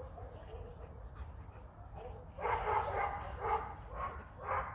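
German Shepherd dog giving a run of about five short barks and whines, half a second or so apart, starting about halfway through.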